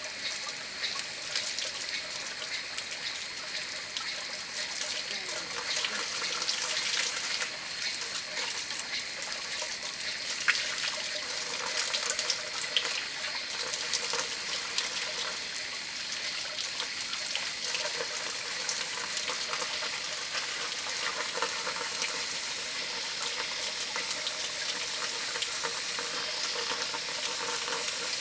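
Water running steadily, a continuous splashing hiss.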